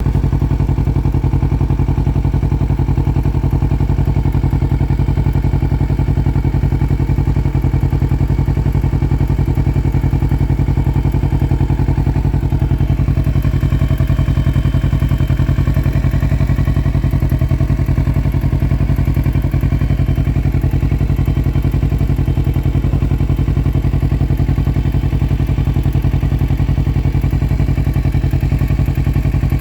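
Kawasaki Versys motorcycle engine running steadily with no revving, making an unusual noise that the owner is asking about.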